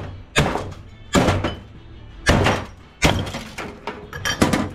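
Pieces of metal scrap clanking against metal: four heavy clanks about a second apart, each ringing briefly, then a quicker run of lighter clanks near the end.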